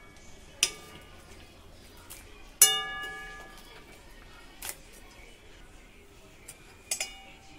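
A steel ladle striking the rims of a steel kadai and a steel serving bowl as dal is scooped and poured. There are about four sharp metallic clinks, each ringing with a bell-like tone; the loudest comes about two and a half seconds in and rings on for about a second.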